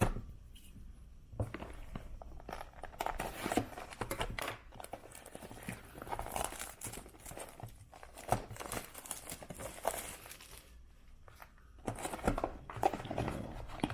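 Crinkling and tearing of plastic wrapping as a hobby box of trading cards is unwrapped, with irregular rustles and small clicks of handling.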